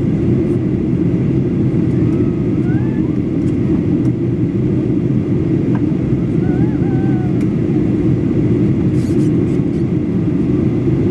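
Steady low roar of engine and airflow noise inside the cabin of a Boeing 737-800 in flight.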